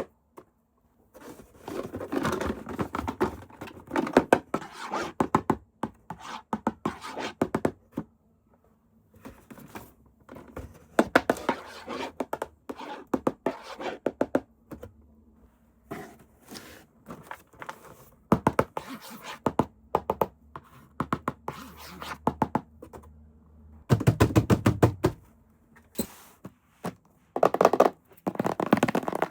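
Toy packaging being handled and opened by hand: irregular clicks, knocks and scrapes of plastic and cardboard in bursts with short pauses.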